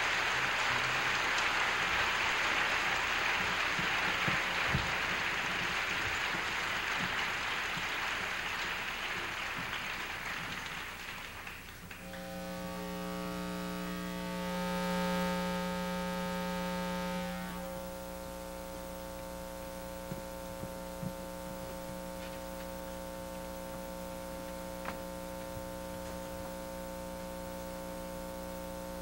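Electrical mains hum and buzz with static on an old videotape soundtrack. For the first dozen seconds a broad noise haze sits over it, fading and then stopping suddenly, after which the steady hum with its many overtones is all that remains, with a few faint clicks.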